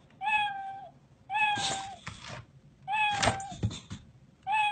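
A children's sound book's built-in speaker plays the same recorded cat meow four times over, each a short flat-pitched call. There are a few sharp clicks between the calls.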